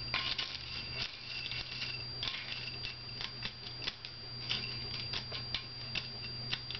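Dry kibble clicking and rattling in a dog's food bowl as a hand stirs it: a run of irregular light clicks, over a steady low hum.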